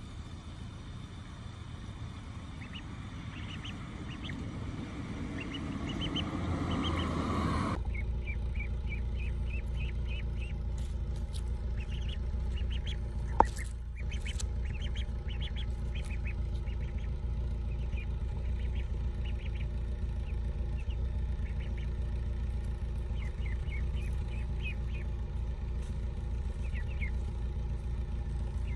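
White ducklings peeping in short, high chirps repeated throughout, over a steady low rumble that gets louder about eight seconds in. A single sharp click sounds about thirteen seconds in.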